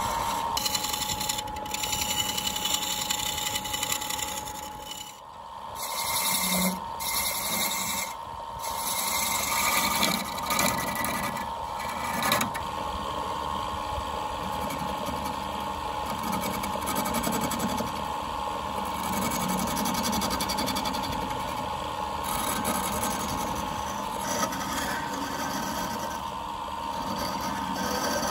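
Wood lathe running steadily, its motor giving a steady hum, while a hand turning tool scrapes and cuts into the spinning wooden workpiece, hollowing the cup. The sound dips and breaks off briefly a few times about five to eight seconds in.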